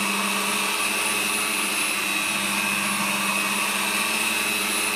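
Handheld wet angle grinder running steadily under load with a high whine, a grit-200 diamond pad grinding the stone.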